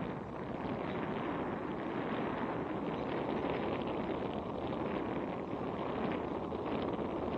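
Steady wind rushing and buffeting over the microphone of a camera hanging from a kite.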